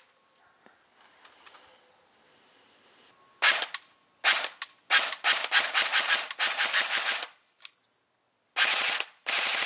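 Airsoft M4-style rifle firing: two single shots, then a rapid full-auto string lasting about two seconds, then two short bursts near the end.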